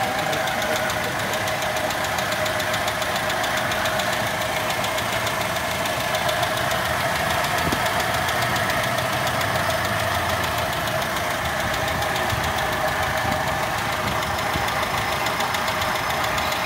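Toyota Kijang 5K four-cylinder petrol engine idling steadily, with a fast, even ticking over the running. This valve clatter is what the owner says needs a valve clearance adjustment.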